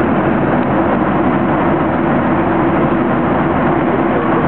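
Steady loud cabin noise of a passenger aircraft climbing after takeoff: engine and airflow drone with a faint steady hum underneath.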